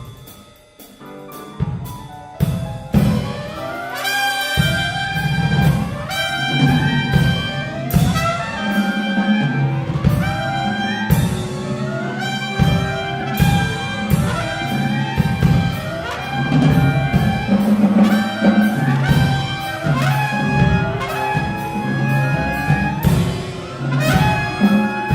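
Mixed chamber ensemble of winds, brass, strings, piano and percussion playing loudly, with trumpet and trombones prominent. It opens almost quiet, percussion hits come in about two seconds in, and the full ensemble enters about four seconds in with repeated rising runs over a heavy low bass line.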